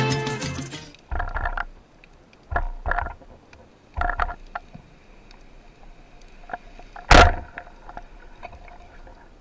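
Underwater sounds: a few short muffled knocks in the first half, then one sharp, loud crack about seven seconds in as a rubber-band speargun is fired.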